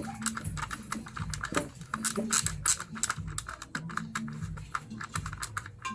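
Screwdriver backing a screw out of a window blind's end plate, with rapid, irregular clicking all the way through.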